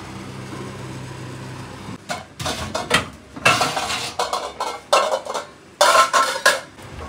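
Metal pots and pans clanking and clattering as they are pulled out of a kitchen cabinet, a run of irregular knocks starting about two seconds in. Before that, only a steady low hum.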